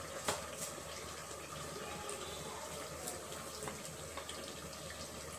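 Chicken gravy simmering and sizzling in a steel pot, a steady hiss, with a few light clicks as tomato purée is scraped from a glass into it with a wooden spoon.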